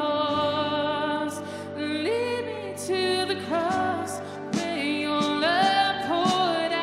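Live worship band playing a slow song: a woman sings held, gliding notes over drums, cymbals and guitars.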